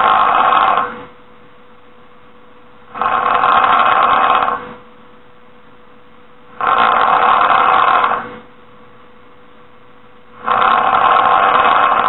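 A person snoring: four loud snores about a second and a half long, repeating every three and a half to four seconds in a steady breathing rhythm, over a faint steady hum.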